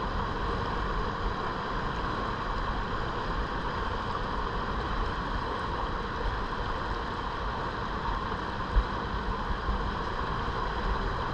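Steady rush of fast river current riffling past a kayak along an eddy line, with one short bump about nine seconds in.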